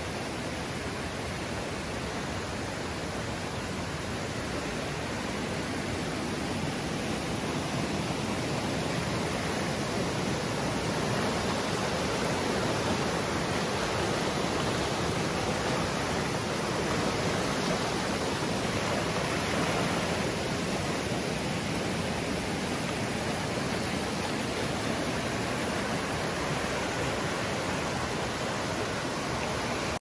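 Fast mountain stream rushing over rocks and rapids: a steady rush of water, a little louder around the middle.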